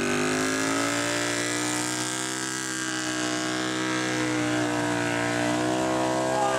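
Custom bobber motorcycle engine held at high revs during a burnout, the rear tyre spinning on asphalt. The pitch is steady, sags a little in the middle and climbs back near the end.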